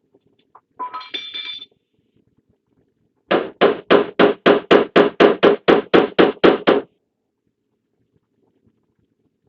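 Hammer knocking on a van's sheet-metal rear door during dent repair: a run of about fifteen quick, even knocks at roughly four a second. A brief squeak comes about a second in.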